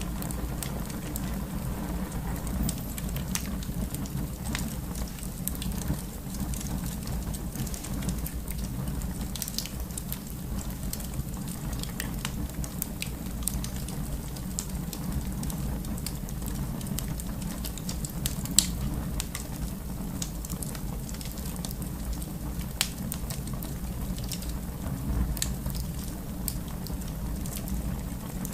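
Wood fire crackling in a fireplace: a steady low rumble and hiss of the flames with scattered sharp pops, one louder pop about two-thirds of the way through.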